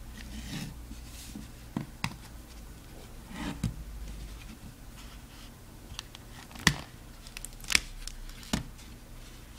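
Hard plastic case of a Casio FX-795P pocket computer being handled on a table and folded open: soft scraping and rubbing, with about five sharp plastic clicks, the loudest in the second half.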